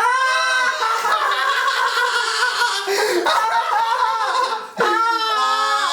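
A man laughing in a long, high-pitched fit while he is being tickled, breaking off briefly about three seconds in and again near the end.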